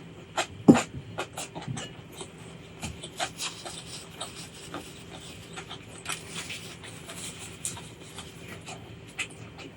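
Close-miked eating sounds: chewing with a run of sharp crunches and mouth clicks in the first two seconds, then steadier, softer crackly chewing and smacking.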